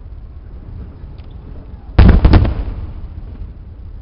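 Fireworks: a low rumble, then a sudden loud firework bang about halfway through, a sharp crack just after it, and a rumble that fades out.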